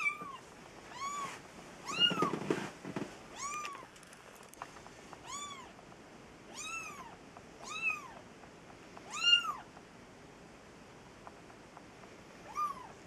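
Very young kitten mewing repeatedly: about nine short, high-pitched cries, each rising and falling in pitch, spaced a second or so apart, with a longer pause before the last.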